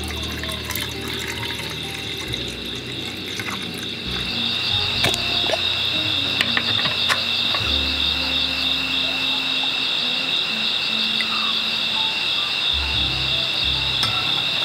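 Steady, high-pitched night chorus of calling animals, two pulsing tones held throughout, with scattered light clicks; it grows louder about four seconds in.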